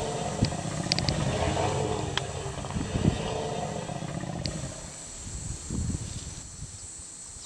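Desert-adapted African bush elephants giving low rumbles as the herd closes ranks defensively around its calves, fading about four and a half seconds in. A few sharp clicks sound over the rumbling.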